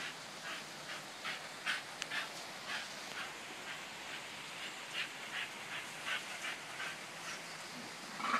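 A dog outside a screen door whimpering in a run of short, repeated cries, about two or three a second.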